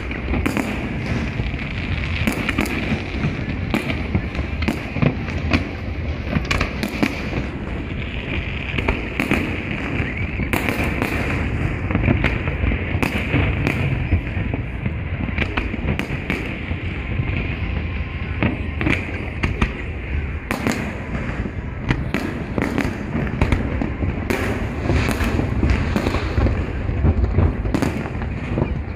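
Aerial fireworks bursting in quick succession: a dense run of sharp bangs and crackles over a continuous low rumble, with a crowd of spectators talking throughout.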